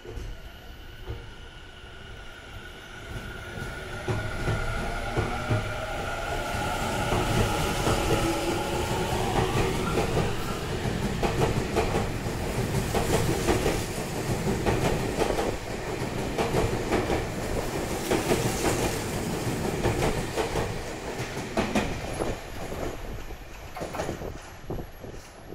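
Tobu 50050 series ten-car electric train pulling away: over about the first ten seconds the traction motors' whine climbs in pitch as the train accelerates. After that the wheels clatter over rail joints in a dense run of clicks as the cars pass, and the sound drops off near the end as the train leaves.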